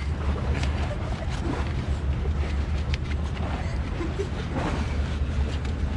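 A sailing yacht's engine running steadily with a low hum, heard from inside the wheelhouse, with wind noise and a few faint clicks over it.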